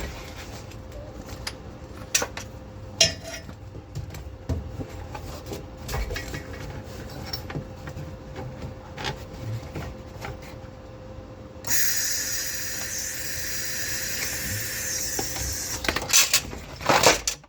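Scattered clanks and taps of metal parts being handled and positioned, then about twelve seconds in a welding arc starts and hisses and crackles steadily for about five seconds as a tack weld is laid on a steel crossmember bracket, followed by a few sharp knocks near the end.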